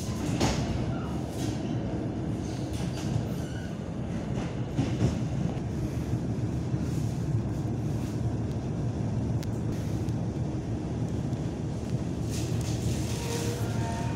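Passenger train in motion heard from inside the carriage: a steady low rumble of wheels on rails, with scattered light clicks from the track.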